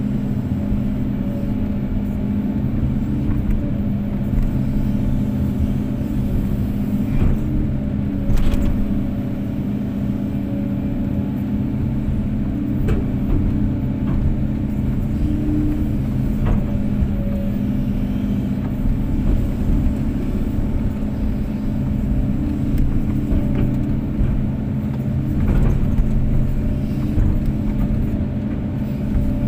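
Kobelco SK250-8 excavator's diesel engine running steadily, with a few short sharp knocks now and then, the clearest about eight seconds in.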